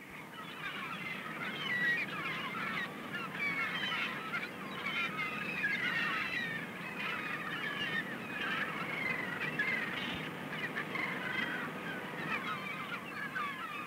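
A flock of birds calling noisily, many short overlapping cries without pause.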